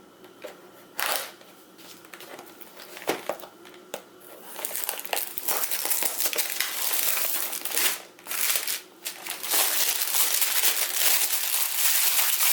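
Stiff plastic packaging crinkling as it is handled and opened, sounding like a chip bag. A few sharp crackles at first, then loud, continuous crinkling from about four seconds in, with a couple of brief breaks.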